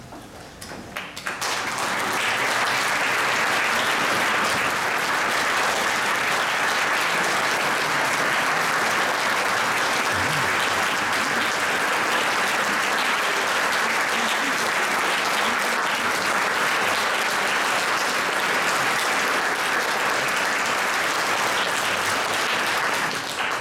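Audience applauding in a concert hall, a steady dense clapping that swells up about a second and a half in and cuts off abruptly near the end.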